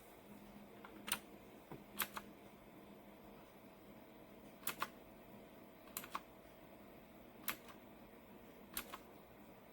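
Single key presses on a mechanical keyboard with clicky blue switches, the RK Royal Kludge S108. There are about six separate strokes, one every second or so, and most give a quick double click.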